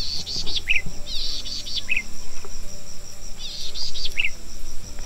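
A bird repeating a short phrase of rapid high chirps that ends in a quick downward slur, about four times, over a steady high-pitched insect drone.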